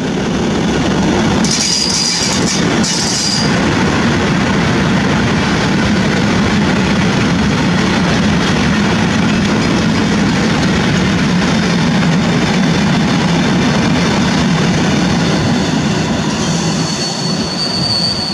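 A freight train of self-unloading hopper wagons, hauled by an SM42 diesel shunting locomotive, rolling steadily past with a continuous rumble of wheels on rail. High wheel squeals come briefly about two seconds in and again near the end.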